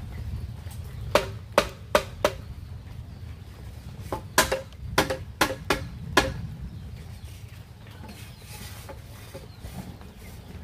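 Hammer blows on a bamboo frame: four quick strikes about a second in, then a second run of six strikes a few seconds later, each a sharp knock with a short hollow ring.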